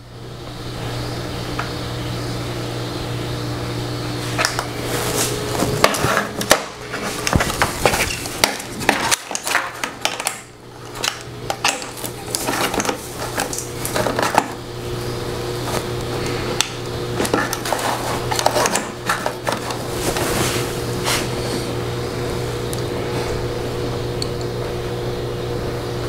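Scattered clicks, taps and clatter of hard parts being handled and set against a printer frame, over a steady low hum. The clatter thins out in the last few seconds.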